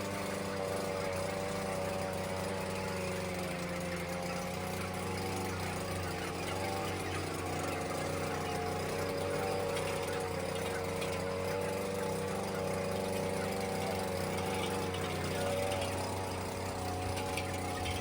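Steady mechanical hum of ventilation fan motors in an environmentally controlled poultry house: a constant low drone with several higher tones that waver slightly and never stop.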